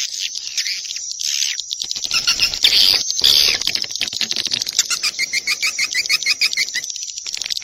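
Swiftlet lure-call recording: swiftlet chirps and twittering with rapid clicks, and about halfway through a quick run of evenly spaced, repeated chirps, about six a second. It is the kind of call played from a swiftlet house to draw in flocks of swiftlets.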